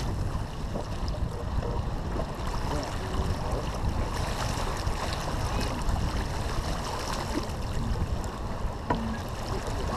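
Steady wind rumble on the microphone and water rushing along the hull of a sailboat under way.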